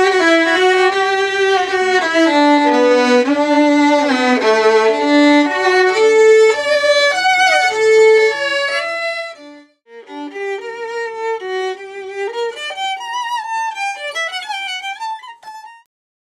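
Two violins playing a melody together in sustained bowed notes, one of them an antique violin freshly repaired with a new bridge and an adjusted sound post. The playing breaks off after about nine seconds, resumes more softly with vibrato a moment later, and ends shortly before the close.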